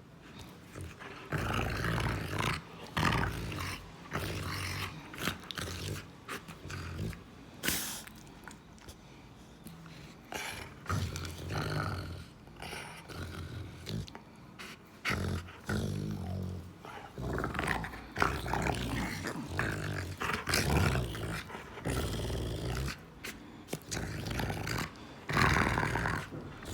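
Rottweiler growling in repeated bouts of one to two seconds each, with short sharp clicks in between.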